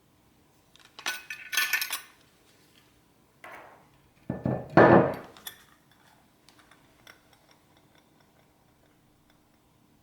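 Hard objects clinking and knocking as they are handled and set down. There is a burst of clinks about a second in, then a louder cluster of knocks about four to five seconds in, then a few faint ticks.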